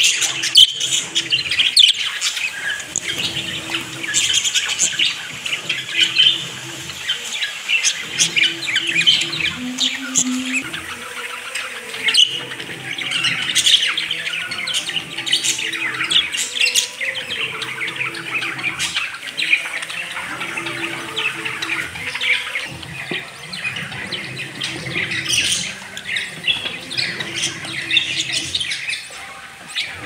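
A group of budgerigars chattering, with a dense run of quick chirps, warbles and squawks throughout.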